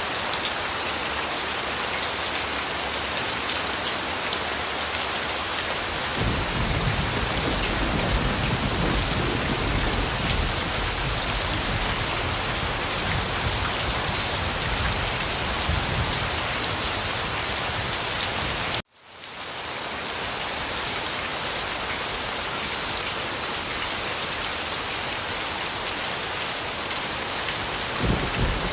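Steady rain falling on a surface, an even hiss, with a low rumble underneath through the middle of the stretch and again near the end. The rain cuts out for an instant about two-thirds of the way through, then comes back.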